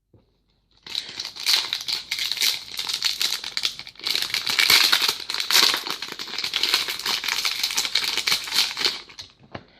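Trading-card pack wrappers crinkling and rustling in the hands as packs are opened and handled. It starts about a second in and stops just before the end.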